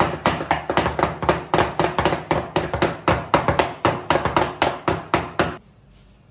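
Rapid, even strikes, about four a second, like kitchen work on a hard surface, stopping abruptly about five and a half seconds in.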